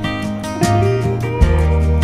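Country-style song in an instrumental stretch without vocals: strummed acoustic guitar over bass and a steady drum beat.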